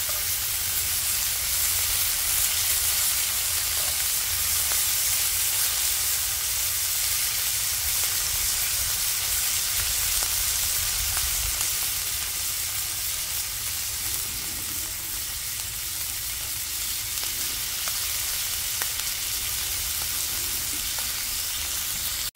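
Beef skirt and striploin slices sizzling steadily in hot oil in a cast-iron skillet, with faint crackles of spattering fat.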